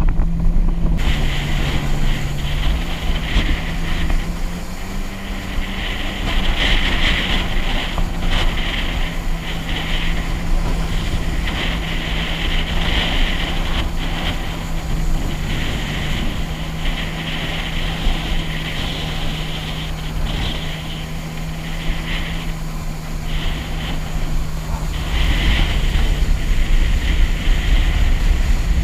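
Jet ski engine running steadily under way, a constant hum with water rushing and spraying and wind buffeting the mounted microphone. It grows somewhat louder near the end.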